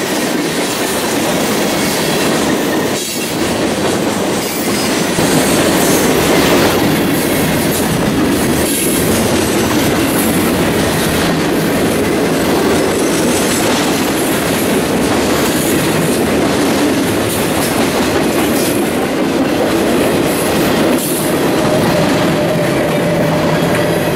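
Mixed freight train of boxcars and flatcars rolling past close by: a loud, steady rumble and rattle of steel wheels on the rails, with clickety-clack over the rail joints.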